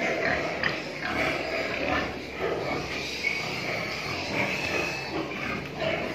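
Domestic pigs grunting in a pen, a continuous run of short irregular grunts.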